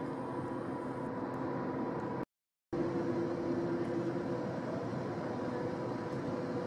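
Steady background machinery hum over a noise bed, with a few constant tones, cut by a brief dropout to dead silence a little over two seconds in.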